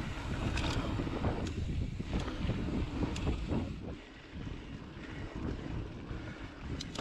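Wind rushing over the microphone on a mountain bike ridden along a sandy dirt trail, with the tyres rolling over the dirt and a few sharp clicks and rattles from the bike. Louder for the first four seconds, then easing.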